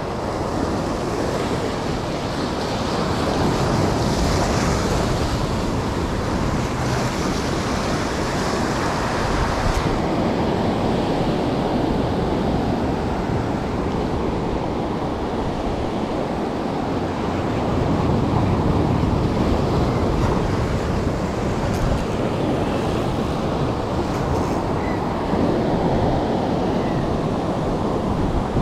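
Ocean surf breaking and washing over a rocky shore, swelling and easing as successive waves come in.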